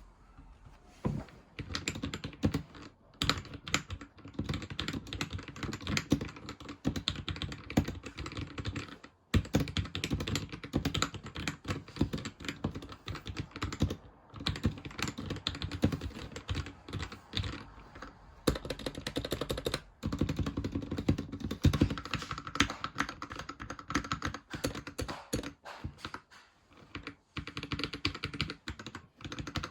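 Typing on a budget mechanical keyboard with lubed and clipped Gateron Red linear switches: a fast, steady run of keystrokes with brief pauses.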